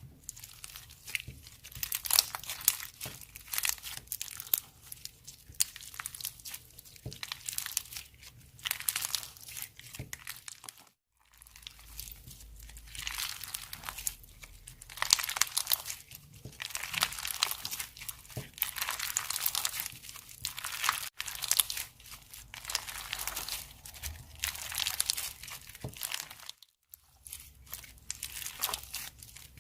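Slime being squeezed and worked by hand, making dense crackling and crinkling sounds in stretches. It breaks off briefly twice.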